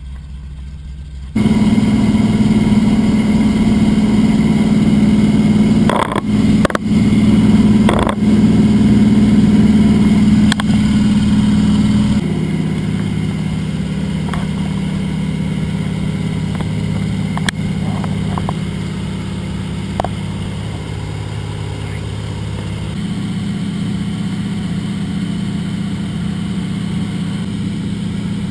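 Float plane's engine and propeller droning steadily, heard from inside the cabin. The drone comes in suddenly at full strength a little over a second in, with a few sharp knocks around six to eight seconds. Its pitch drops and it runs quieter about twelve seconds in, then rises a little near the end.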